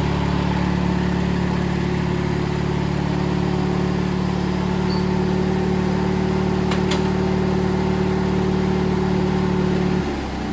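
Riding lawn mower engine running at a steady speed, then shut off near the end and winding down.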